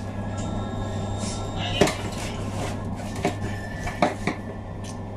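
A kitchen knife knocking and scraping against a fish and a stainless-steel sink counter while the fish is cleaned. There are a few sharp clanks, the loudest about two seconds in, over a steady low hum.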